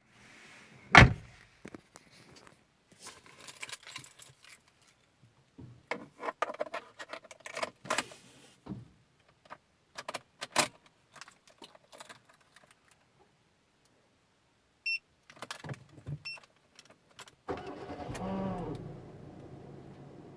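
Hyundai Accent being started: a loud click about a second in and scattered key rattles and clicks, two short warning beeps near the middle, then the starter cranks and the engine catches and settles into a steady idle near the end. The cranking carries the extraneous starter noise the owner is showing.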